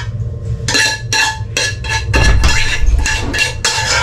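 A spoon scraping and clinking against a cooking pot as the food is scraped out of it, in quick repeated strokes about three a second.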